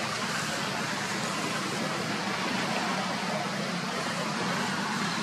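Steady, even background rush of noise with no distinct events, like distant traffic.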